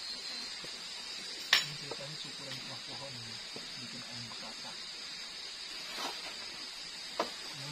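Steady high-pitched chorus of night insects, with a sharp crack about one and a half seconds in and a smaller one near the end, over faint low murmured voices.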